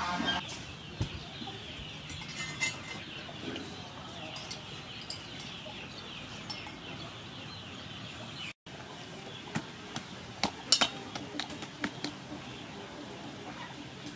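Chickens clucking in the background over a steady high-pitched hum. A run of sharp taps and clicks comes about ten seconds in.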